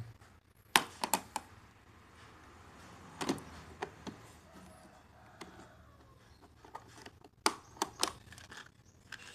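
Sharp plastic clicks and knocks from a hard plastic tool case being handled and its snap latches opened, in a few short clusters with quiet between.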